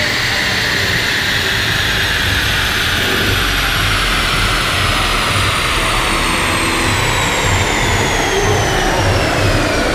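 A chassis dyno's roller and a BMW 135i's driveline spinning down after a power run: a high whine falling slowly and steadily in pitch, over a low rumble.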